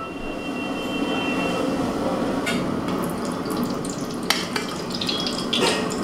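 Mustard oil being poured into an empty aluminium kadai: a steady trickling splash of liquid on metal, with a few light clicks along the way.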